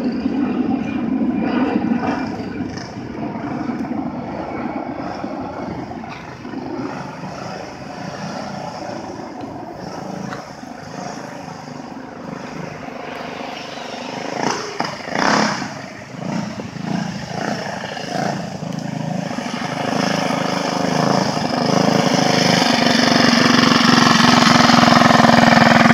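A mini bike's small single-cylinder engine running as the bike rides off down the street and comes back, fainter in the middle and loudest near the end as it passes close by. The rider calls it a little boggy.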